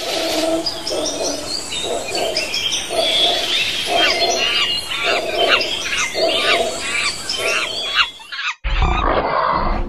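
Jungle ambience: many birds chirping and calling over a low call that repeats about once a second. It cuts off abruptly about eight and a half seconds in, giving way to a duller room sound.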